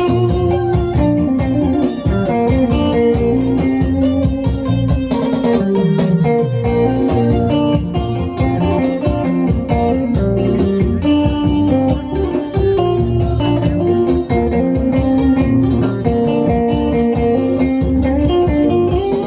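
A live band playing an instrumental dance tune, led by guitar over a bass line and a steady beat.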